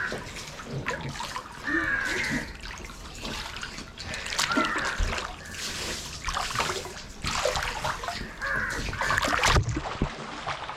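Water splashing and sloshing in an inflatable pool as a child swims and kicks, in irregular splashes throughout.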